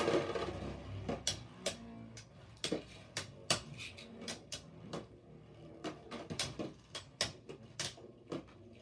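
Beyblade spinning tops in a plastic stadium, clacking against each other and the stadium walls in irregular sharp clicks. A spinning rush at the start dies away within about a second.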